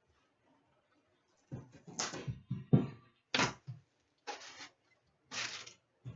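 A string of short knocks, thunks and rustles from a hockey card tin and its packs being handled and opened. It starts about a second and a half in, with the loudest knock near the middle.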